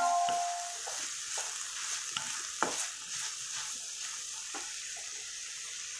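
Chopped onions frying in oil in a black wok with a steady sizzle, stirred with a wooden spatula that scrapes and taps on the pan every second or so.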